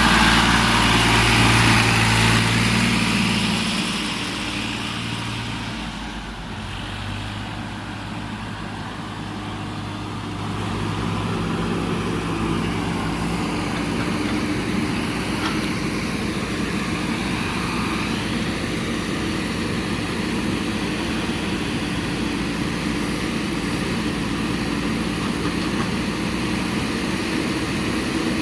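Heavy diesel machinery engine running. Loud at first, it fades over a few seconds, then holds steady again from about ten seconds in.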